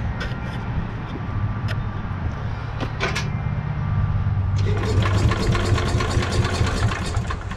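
Allis-Chalmers B-10 garden tractor's single-cylinder engine running at idle, with a few sharp metal clicks. About four and a half seconds in it picks up and runs louder.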